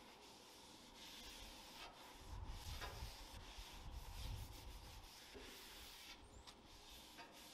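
Faint wiping strokes as an oil-soaked paper towel held in tongs is rubbed across the hot steel top of a Blackstone griddle to season it. A low rumble swells underneath in the middle.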